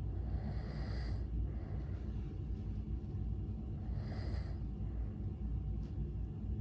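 A sleeping person snoring, with two noisy breaths about three and a half seconds apart over a steady low rumble.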